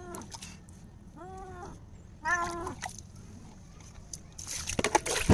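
Wet domestic tabby cat meowing three times during a bath, each meow rising and falling in pitch, the third loudest: the protesting cries of a cat that does not want to be washed. Near the end a loud burst of rough noise.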